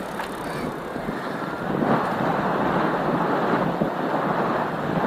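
Steady rushing noise of riding a bicycle: wind buffeting the microphone over the rolling noise of the ride, louder from about two seconds in.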